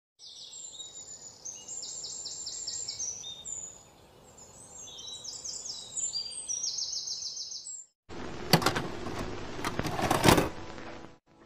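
Songbirds singing, with high, rapid trilled chirps repeated over and over. About eight seconds in, this cuts abruptly to close handling sounds: a few sharp knocks and rustling as a banana is peeled on a wooden cutting board.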